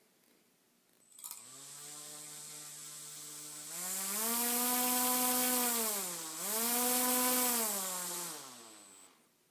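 Small brushless motor driven through an ESC, its speed set by turning the servo tester's knob. It starts with a click about a second in and runs at a low, steady pitch, then speeds up to a higher whine. It dips briefly and speeds up again, then winds down and stops near the end, with a thin, steady high whine above it throughout.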